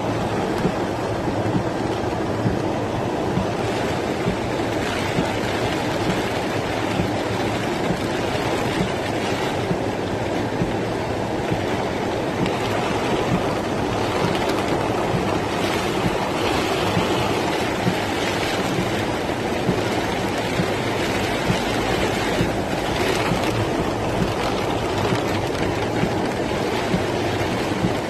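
Rainwater running fast down a street in a cloudburst: a steady rush of water.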